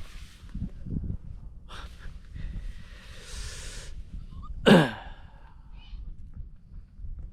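A man crying: sniffling and shaky breaths, then one loud voiced sob a little under five seconds in that slides down in pitch.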